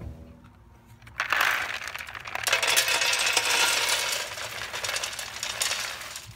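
Lumps of bituminous coal pouring from a plastic bucket into the metal pan of a rivet forge. A continuous rattling clatter of many small pieces starts about a second in and dies away near the end.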